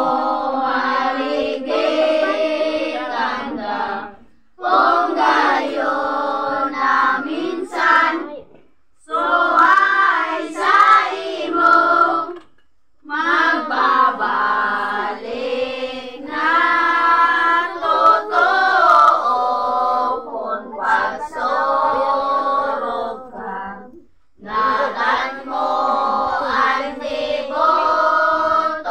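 A group of children and women singing a devotional hymn together, in sung phrases broken by short pauses every few seconds, with no instruments.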